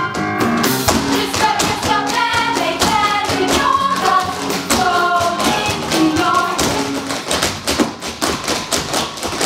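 Tap shoes striking the stage in a fast group tap routine over a show-tune accompaniment, the taps in quick rhythmic clusters throughout.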